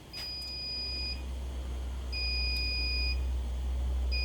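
Fire alarm system trouble sounder beeping: a steady high electronic tone about a second long, repeating every two seconds, signalling a trouble condition (a simulated loss of AC power) that has not yet cleared. A low steady rumble sits beneath it.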